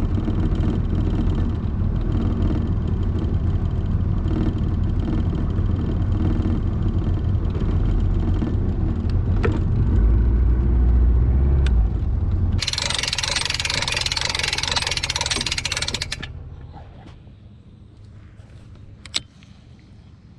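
Boat engine running with a steady low hum, louder for a moment about ten seconds in. About twelve seconds in a loud rushing hiss comes over it for some three seconds, then the engine fades out, leaving a quieter background with one sharp click near the end.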